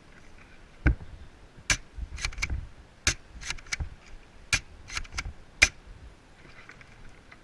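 Airsoft gun firing single shots: about a dozen sharp, irregularly spaced cracks in quick succession.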